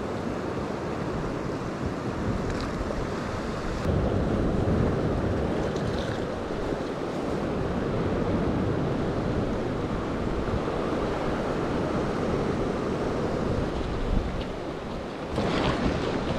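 Sea waves washing against a rocky shore, a steady rush with wind buffeting the microphone, swelling louder near the end.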